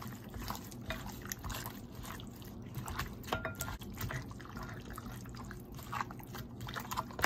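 Irregular wet squelching and clicking of raw marinated pork pieces being squeezed and tossed by a plastic-gloved hand in a ceramic bowl, working in soy-and-ginger-scallion marinade and cornstarch.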